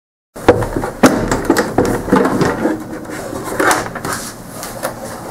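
Plastic rear housing of a CRT monitor being worked loose and lifted off: a string of hard-plastic clicks, knocks and scraping, the sharpest click about a second in.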